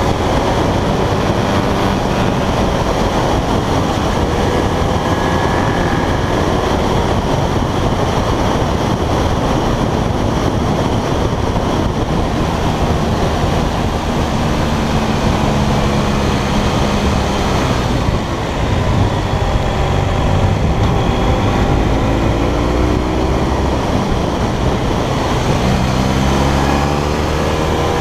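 Motorcycle engine running under way through bends, its pitch rising and falling as the rider rolls the throttle on and off, under a steady rush of wind and road noise on the bike-mounted camera. There is a short drop in level about two-thirds through, and the engine pitch climbs again near the end.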